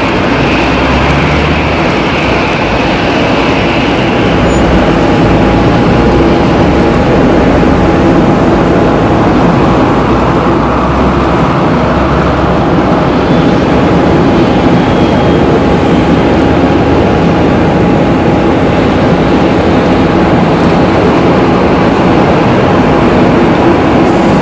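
Boeing 747 jumbo jet's four turbofan engines running as it taxis: a loud, steady jet noise with a held high tone, growing a little louder about five seconds in.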